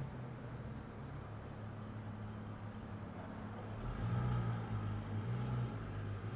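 Porsche 911 GT3's naturally aspirated flat-six running at low revs as the car creeps and turns at walking pace. About four seconds in a van drives past and the engine sound grows louder.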